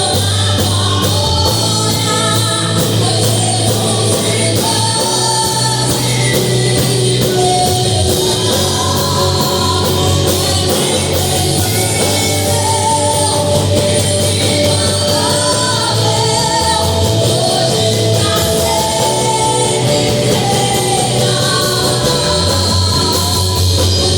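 A song playing: a singing voice over band accompaniment with a steady bass line.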